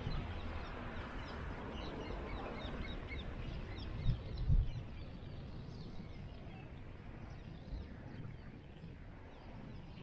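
Small birds chirping, many short high chirps in quick succession over steady outdoor background noise, thinning out after about six seconds. Two low thumps about four seconds in.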